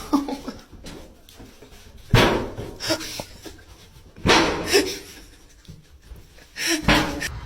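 A dog making several loud, short, breathy bursts a second or so apart, with quieter sounds between.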